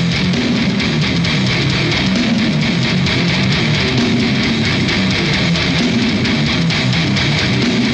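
Heavy metal band playing live, with no vocals: a low, repeating distorted electric guitar riff over bass.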